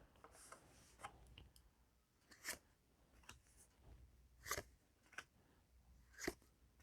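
Faint, scattered rustles and crinkles of a foil trading-card booster pack being opened and its cards handled, a few short crinkles spread over several seconds.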